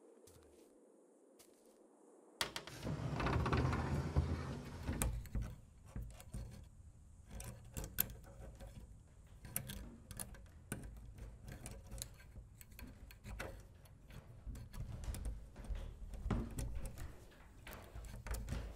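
Hands working the small brass lock of a wooden cabinet door: many light clicks, rattles and knocks. A low rumble starts suddenly about two seconds in and swells briefly.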